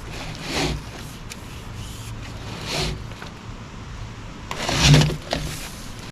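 A plastic water line scraping against a drain pipe as it is shoved and handled, three short scrapes with the loudest near the end, over a low steady hum. The line is stuck partway in the underdrain and will not go any further.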